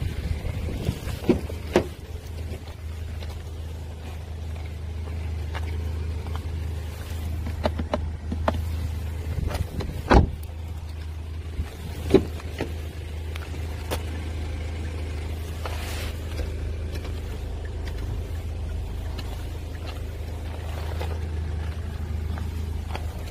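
Kia Sportage turbo diesel engine idling steadily, with a few sharp clicks and knocks as the door is handled and opened, the loudest about ten seconds in.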